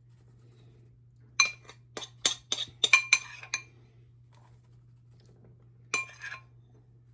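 A spoon clinking against a mixing bowl: a quick run of about eight sharp clinks, each ringing briefly, then one more near the end.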